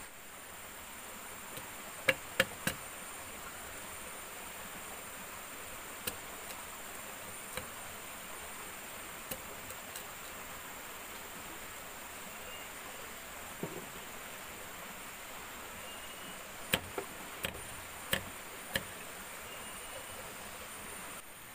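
Sharp knocks in two clusters, three about two seconds in and five more late on, with a few faint ticks between, over a steady high insect drone.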